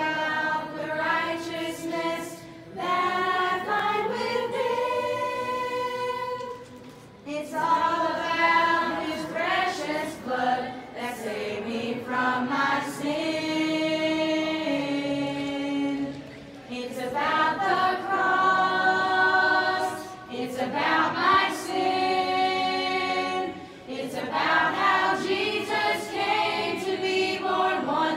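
Mixed teen choir of boys' and girls' voices singing unaccompanied in parts, in long held phrases with short breaks between them.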